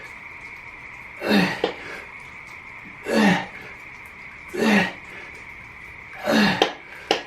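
A man's forceful grunting exhales, one with each lifting rep, about every second and a half. Each one slides down in pitch. Underneath is a steady high hum.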